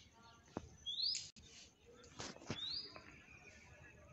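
Parakeets calling: about three short, shrill, upward-sliding screeches, the loudest about a second in.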